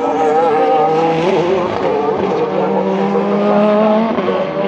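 Several race cars' engines running at high revs at once, their overlapping tones wavering up and down.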